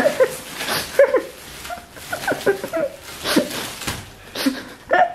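Plastic cling film crinkling and stretching as a person pulls and pushes against it, with many short whining, squeaky sounds that rise and fall.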